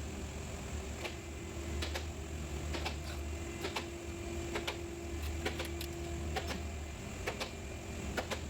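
Irregular clicks and knocks of hand tools and fasteners during car front-end disassembly, over a steady low hum. A faint steady tone sounds from about three to six seconds in.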